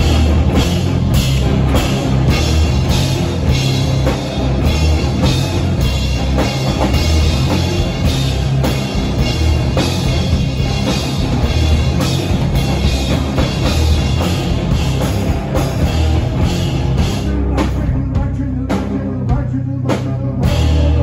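Live rock band playing an instrumental passage: drum kit, electric guitar played across the lap, acoustic guitar and bass guitar. Near the end the sound thins out briefly before the full band comes back in.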